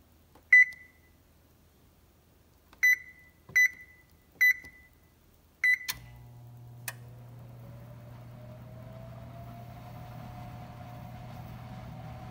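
Wall oven's touch control panel beeping five times as its keys are pressed to set baking. About halfway through, the oven starts its rapid preheat: a steady hum begins and a fan spins up with a slowly rising whine, with a single click a second later.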